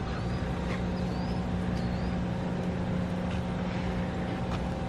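Steady hum of a motor vehicle's engine running at an even pitch, with a few short, faint, high rising chirps over it.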